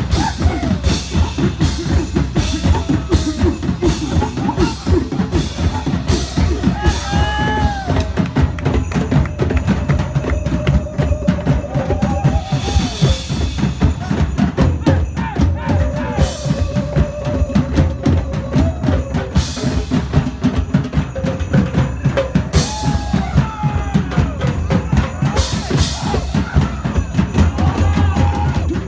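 Loud music driven by a fast, heavy drum beat, with a wavering melody line over it.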